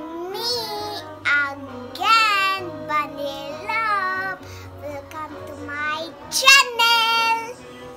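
A young girl singing a gliding melody over backing music with steady low notes.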